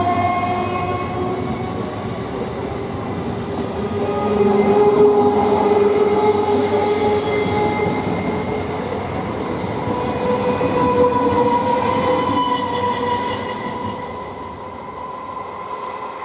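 Old EMU electric local train running along the track, its traction motors whining in several steady tones that rise slowly in pitch as it gathers speed, over the rumble of its wheels on the rails. The sound fades near the end.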